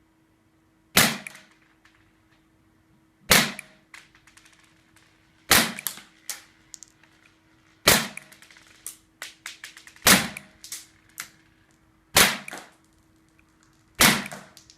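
WE Glock 17 gas blowback airsoft pistol, fitted with a Tanio Koba 6.03 tight-bore barrel, firing seven single shots about every two seconds. Each sharp crack is followed by a brief rattle of smaller clicks.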